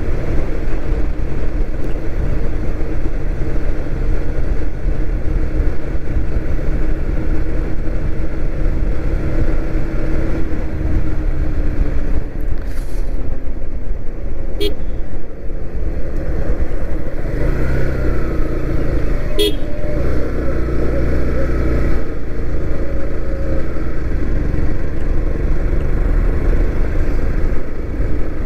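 Yamaha motorcycle engine running steadily at cruising speed, with wind rushing over the microphone. Two short horn beeps sound, about 14 and 19 seconds in.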